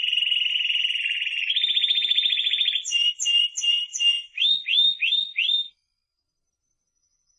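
Timbrado Español canary singing. It opens with a long fast rolling trill that changes to a slower, coarser roll about one and a half seconds in. A few repeated notes and four quick rising notes follow before it stops.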